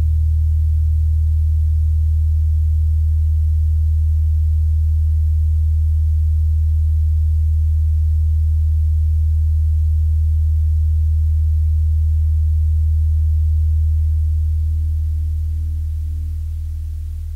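A low, steady drone of pure tones, part of a just-intonation piece for saxophone quartet and electronics. It fades out over the last few seconds, while faint higher tones come in, pulsing.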